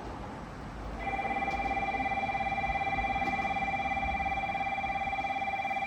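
Electric station platform bell ringing continuously with a fast trembling tone, starting about a second in.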